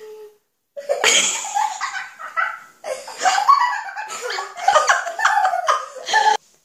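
A young boy and girl laughing hard and giggling. The laughter breaks off suddenly near the end.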